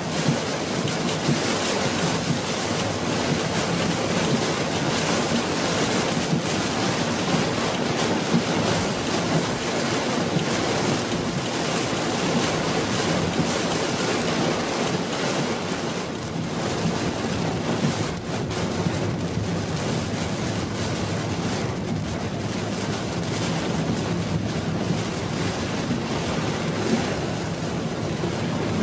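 Heavy rain falling on a car's windscreen and roof, heard from inside the moving car as a steady, even rush peppered with small ticks, mixed with tyre noise on the waterlogged road.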